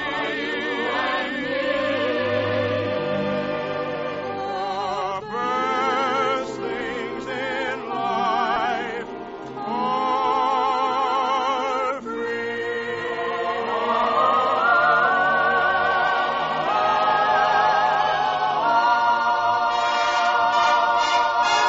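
Orchestra and singers in a 1948 radio broadcast recording, with long held vocal notes in heavy vibrato. It swells louder and fuller in the second half toward a big closing chord.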